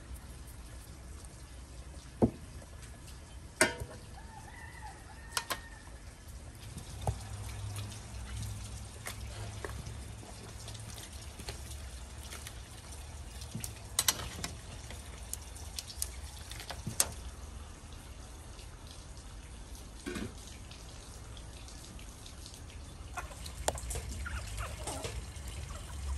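A large aluminium stock pot of khash simmering over a wood fire, with sharp clinks of a metal ladle against the pot now and then as it is stirred. Near the end, chickens cluck.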